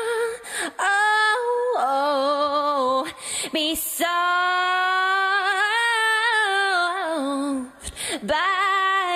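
A woman singing slow, long-held notes with vibrato as a song on the soundtrack, the longest note held about three seconds in the middle.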